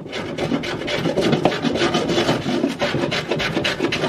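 Wooden drawer front being rasped down along its top edge by hand in rapid back-and-forth scraping strokes, trimming it to widen the gap between drawers.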